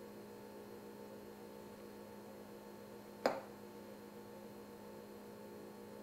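Steady low electrical hum, with one sharp click about three seconds in.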